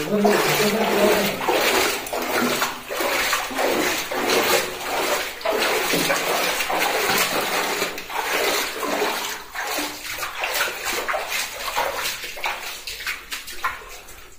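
Feet wading through shallow water on a cave floor, a steady run of irregular splashes.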